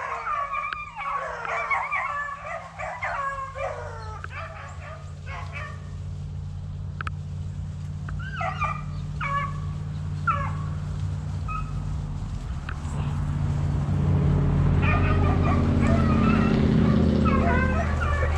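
A pack of beagles baying and yipping on a rabbit's trail: dense barking at first, scattered barks in the middle, then the pack in full cry again near the end. A steady low engine drone builds under them from the middle and is loudest in the last few seconds.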